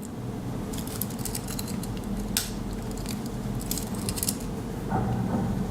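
Small metallic clicks and scrapes of a Victorinox Swiss Army knife being handled while its blade is worked open with one hand, with one sharper click about two and a half seconds in. A low steady hum runs underneath.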